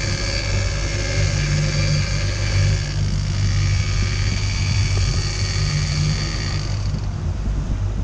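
Fishing boat's inboard engine running steadily under way, with a steady high whine over it that cuts off near the end.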